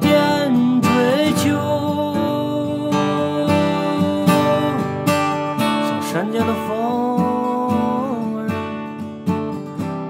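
Gibson J-45 acoustic guitar strummed, playing the instrumental break of a folk song.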